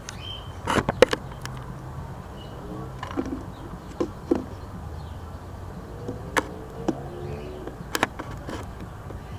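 Scattered sharp taps and clicks at irregular intervals, the loudest about a second in, over a low steady hum, with a few faint short pitched sounds between them.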